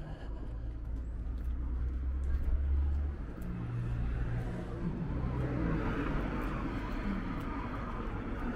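Road traffic on a city street: a low vehicle rumble that swells about two to three seconds in, then tyre and engine noise from passing cars rising through the second half.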